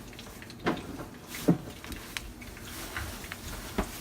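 A few short, soft knocks and small clicks of kitchen utensils and cookware being handled, over a faint steady hiss.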